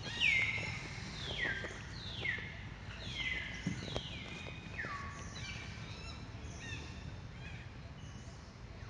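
A series of about eight high animal calls, roughly one a second. Each slides down and levels off, and the calls grow fainter and lower in pitch as they go on.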